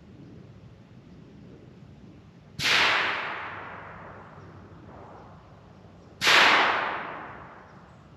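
Two gunshots about three and a half seconds apart, each a sharp crack followed by a long echo that dies away over a second or more.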